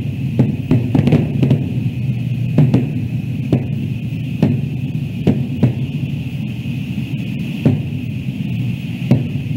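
Distant aerial fireworks going off: about a dozen irregular bangs and pops, each trailing off in an echo, over a steady low rumble.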